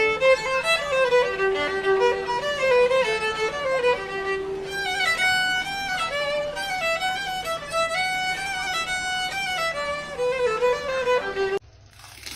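Background violin music playing a lively melody of quick notes; it cuts off abruptly near the end.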